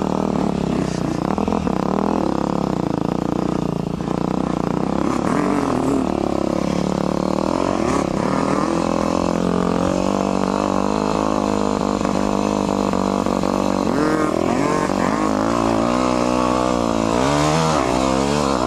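Motocross dirt bike engine, heard from the rider's own bike, revving up and easing off over and over as it is ridden through deep, thick sand, with several quick climbs in revs near the end.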